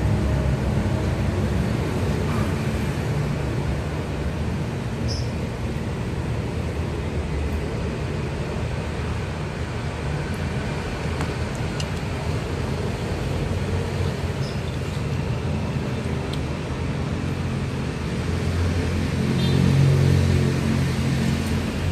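Steady low rumble of road traffic, swelling a little near the end.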